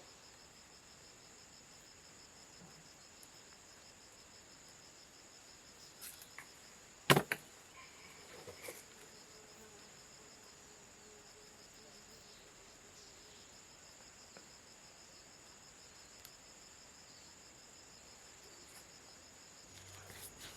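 Steady high-pitched insect trilling, with a single sharp knock about seven seconds in and a few fainter clicks around it.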